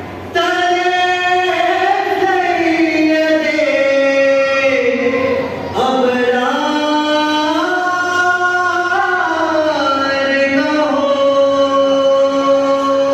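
One voice singing a devotional recitation in long, drawn-out notes that glide slowly up and down, with a brief pause for breath about halfway through.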